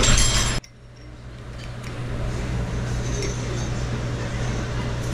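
Restaurant room noise with a steady low hum and a few faint clicks of metal chopsticks against a ceramic bowl. A louder, noisier stretch with high ringing tones stops abruptly about half a second in.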